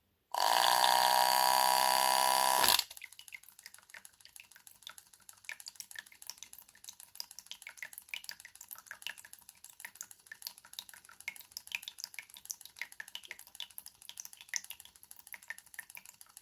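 Small electric breast pump motor whining steadily while pumping water, cutting off abruptly about three seconds in. Faint, irregular drips and small ticks of water follow.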